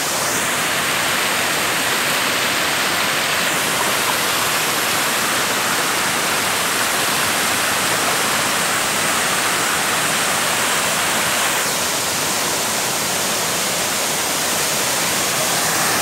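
Waterfall pouring into its pool and a stream rushing over rocks below it, a loud, steady rush of water.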